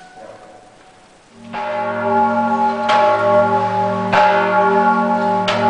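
A large iron church bell of about six tons starting to toll: the first strike comes about a second and a half in, then strikes follow roughly every 1.3 seconds, each over a long, deep, ringing hum that carries on between them.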